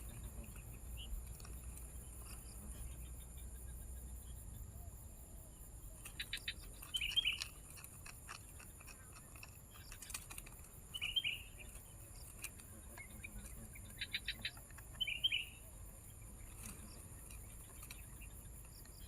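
Sooty-headed bulbul giving short chirping calls every few seconds, several of them preceded by a quick run of ticking notes.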